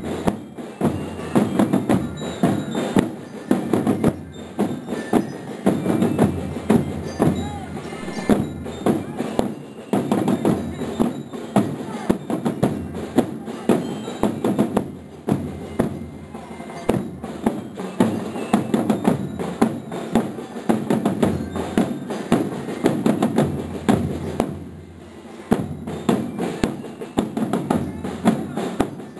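School marching band's bass drum and snare drums beating a steady march rhythm, with a short pause near the end.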